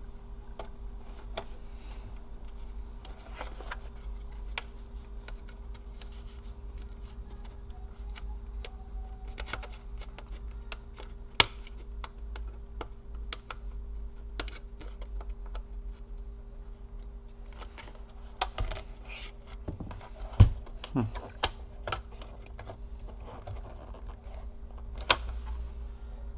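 Irregular clicks and taps of laptop plastic casing parts being pried and handled with small tools, with a few sharper knocks around the middle and near the end, over a steady low hum.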